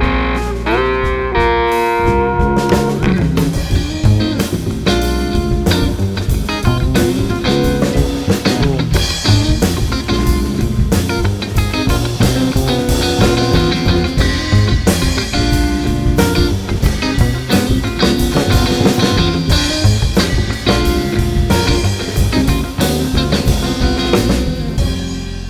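Background music: guitar playing, with a drum kit coming in about two seconds in and keeping a steady beat.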